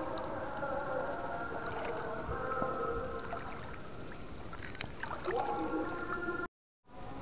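Steady night chorus of calling insects and frogs, several unbroken tones layered together. The sound cuts to silence for a moment near the end.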